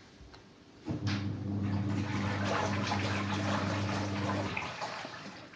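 Water rushing, as from a flush or a running tap, with a steady low hum under it; it starts about a second in and stops after about three and a half seconds.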